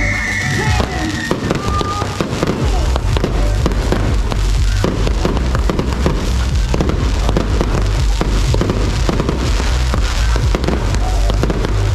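Fireworks going off in a rapid, continuous stream of cracks and bangs.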